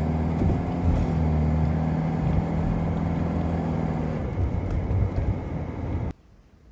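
Toyota HiAce van driving, heard from inside the cabin: a steady low engine hum over road noise. The hum fades about four seconds in, leaving road noise, and the sound cuts off suddenly about six seconds in.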